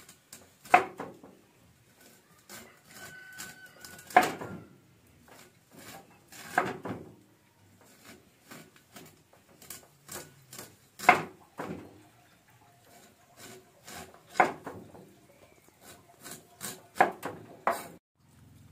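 A Chinese cleaver chopping baby corn on a round wooden chopping block. Quick light taps of the blade on the wood, with a much louder, sharper chop every few seconds.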